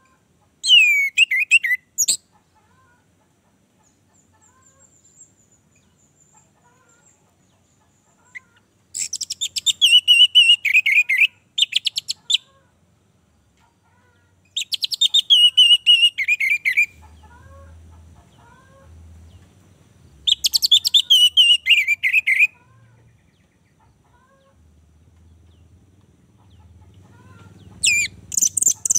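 Orange-headed thrush (anis merah) singing in bursts: five loud song phrases of a second or two each, separated by pauses of several seconds. Each phrase is a fast run of high notes that slides down in pitch.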